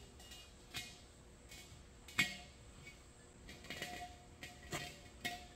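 Large glazed earthenware jar being handled and turned on a concrete floor: a few light ceramic knocks and scrapes, the sharpest about two seconds in, some with a short ring.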